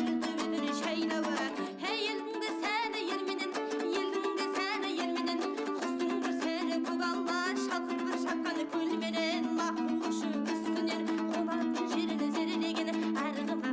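Background music led by a plucked string instrument, playing a steady melody.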